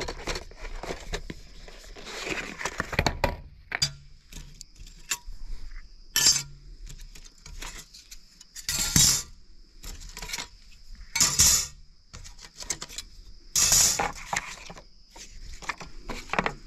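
Thin titanium stove panels of a Fire Ant wood-burning stove clinking and sliding on a glass tabletop as they are unpacked and laid out, with several sharp clinks. A steady high insect chirr runs underneath.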